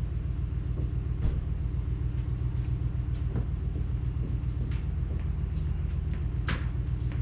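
Kubota tractor's diesel engine running at a steady idle, with a few light clicks and knocks over it.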